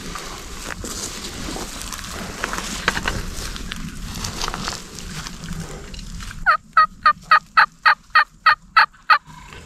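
Faint rustling, then about two-thirds of the way in a run of about eleven loud, evenly spaced turkey yelps, roughly four a second.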